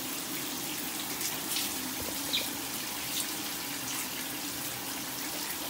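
Water running and splattering in a tiled shower stall during a dog's bath, a steady hiss with a faint steady hum and a few small splashes.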